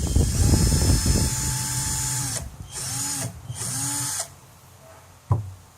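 12V cordless drill running without load, the trigger eased off and squeezed again twice so the motor whine dips and climbs, then stopping about four seconds in. A rough knocking rattle over the first second, and a single sharp click near the end.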